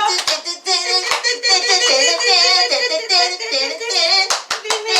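A song with singing, and several sharp hand claps over it at uneven times.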